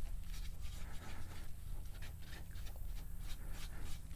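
Hand rubbing dark tung oil into a wooden board, a soft scratchy swish with each of many quick back-and-forth strokes.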